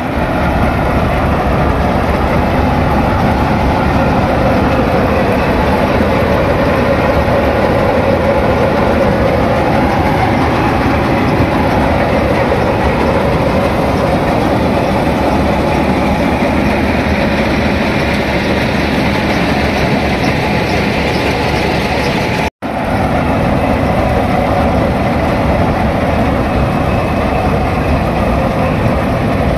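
Standard Corporation combine harvester running steadily, its engine and machinery making a continuous dense noise. The sound cuts out for an instant about three-quarters of the way through.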